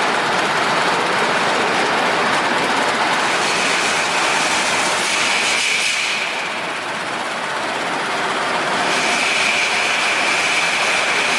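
Metal polishing machine working generator parts: a steady grinding hiss with a high whine that comes and goes, easing off briefly about halfway through.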